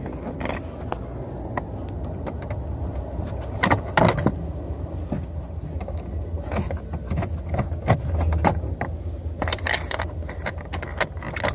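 Irregular clicks, scrapes and small metallic rattles of a Phillips screwdriver backing screws out of a truck's rear door trim panel, over a steady low rumble.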